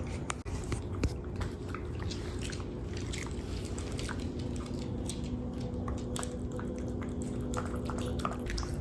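Shiba Inu chewing, with many small irregular clicks from its mouth, over a steady low hum.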